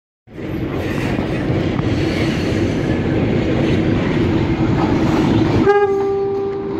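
Diesel locomotive 9313 approaching at trackside, with a steady rumble of engine and wheels on the rails that starts suddenly just after the beginning. Near the end comes a single horn blast of about a second.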